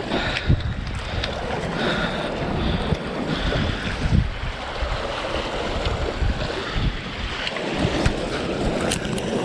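Sea waves washing against the shore, with strong wind buffeting the microphone in low rumbling gusts.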